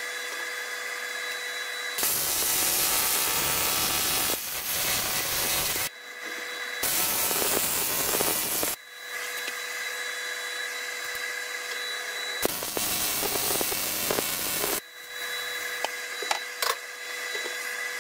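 AC TIG welder arc on aluminium: three loud stretches of hiss and crackle of about two seconds each, with a quieter steady whine and a few clicks between them.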